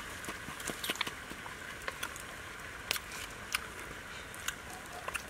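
Steady hiss of a wok steaming over a wood fire, with scattered sharp cracks and knocks from the fire crackling and a wooden pestle pounding in a mortar.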